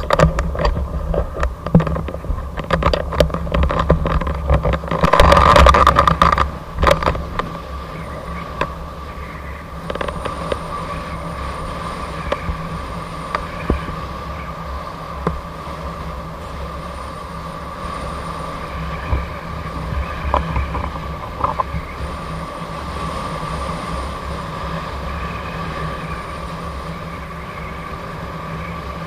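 Gotway MSP electric unicycle riding at highway speed: wind rushing and buffeting over the microphone, with road rumble and a steady high whine. The buffeting is heavy for the first several seconds, then settles to an even rush.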